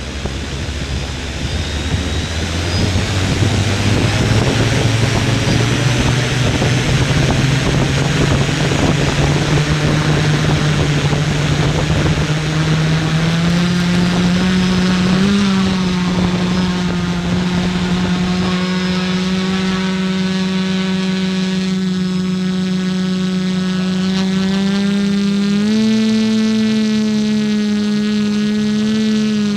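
FPV drone's electric motors and propellers running under way: a steady hum whose pitch climbs slowly through the first half and steps up again near the end, over a rushing noise that fades after the first dozen seconds.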